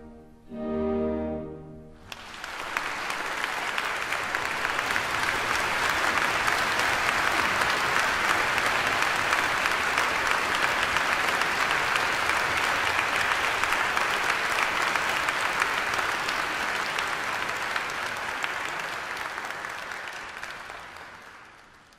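A symphony orchestra's closing chord sounds for the first two seconds, then a large audience breaks into steady applause that fades away near the end.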